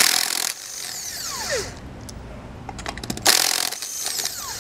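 Cordless impact wrench hammering trailer lug nuts loose: two short loud bursts, each followed by a falling whine, with a few sharp clicks between them.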